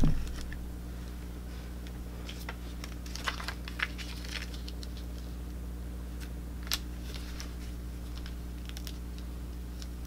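Light scattered clicks and crinkles as hands press and smooth iron-on vinyl pieces on their clear plastic carrier sheets onto a painted wooden board, over a steady low hum. The clicks cluster in the first half, and one sharper click comes about two-thirds of the way in.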